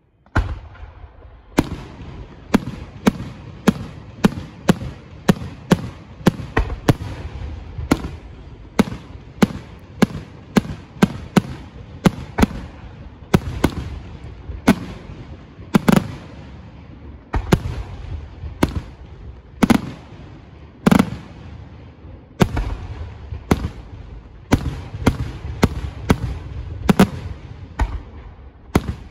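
Aerial fireworks shells bursting in rapid succession: sharp bangs, about two to three a second, over a continuous low rumble. They start abruptly just after the quiet.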